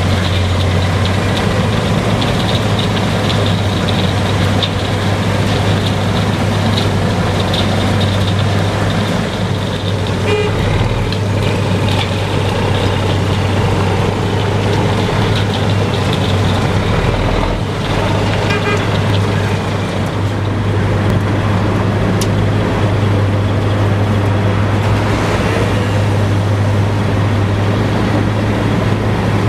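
Heavy diesel engines of a DAF XF95 tipper truck and a Wirtgen W2000 cold milling machine running together, a loud steady low drone while the milling machine's conveyor loads asphalt millings into the truck.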